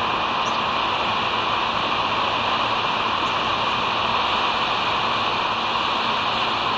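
Steady rushing outdoor noise picked up by an eagle nest camera's microphone above the sea, with a faint low hum and two brief, faint high chirps about half a second and three seconds in.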